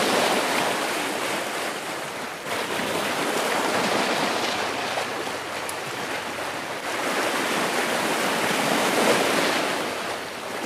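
Sea waves washing over the rocks of a rocky shore, a steady wash that swells and eases in a few long surges.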